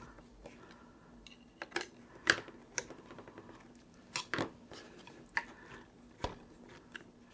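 A long screwdriver clicking and scraping in the screw heads as the screws of an Alphacool Eisbaer AIO pump housing are tightened in turn, drawing its two halves together. There are scattered small clicks at irregular intervals, with the loudest a little past two seconds in and about four seconds in.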